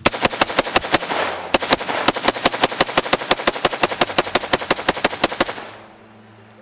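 AR-15 rifle with a 14.5-inch mid-length barrel fired as fast as the trigger allows in a mag dump, about seven or eight shots a second, with a short pause about a second in. The string stops about five and a half seconds in, leaving a fading echo.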